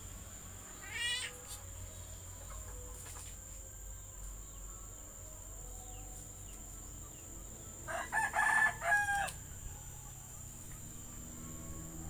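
Caged Javan myna calling: a short rising call about a second in, then a louder call in several quick parts, much like a rooster's crow, about eight seconds in.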